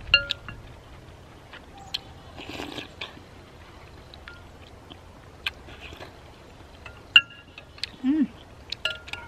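Metal spoon and chopsticks clinking against a glass soup bowl, the loudest taps near the start, about seven seconds in and near the end, each ringing briefly. Eating sounds (chewing and a slurp of soup) fall between the clinks.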